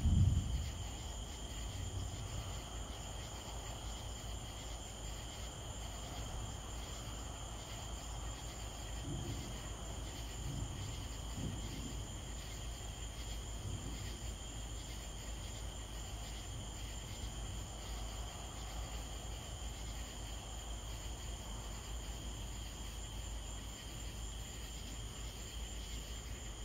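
Steady night chorus of crickets and other insects, one continuous high buzzing tone, over a low rumble; a short low thump right at the start.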